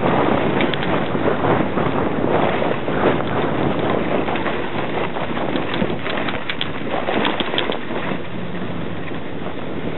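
A toboggan sliding fast over snow: a steady rush of runners on snow mixed with wind blowing across the microphone, with a few sharp scrapes a little past halfway.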